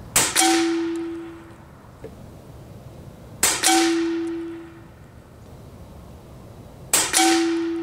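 Steyr LG110 PCP air rifle firing three shots about three and a half seconds apart. Each crack is followed a quarter second later by a second sharp crack and a ringing tone that fades within about a second.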